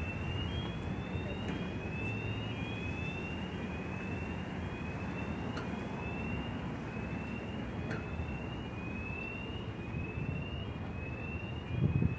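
Urban street ambience of low traffic rumble, with a regular series of short, high, rising chirps about once a second. There is a low bump near the end.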